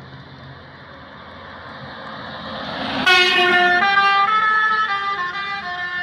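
A bus approaches with road noise swelling. About three seconds in, a loud multi-tone musical horn starts suddenly and plays a tune of short held notes, stepping up and down in pitch, as the bus passes.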